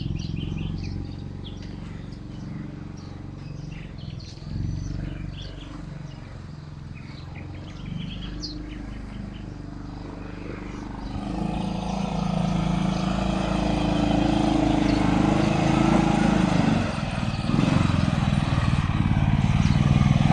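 ATV engine running steadily, growing louder from about halfway through. Birds chirp in the first half.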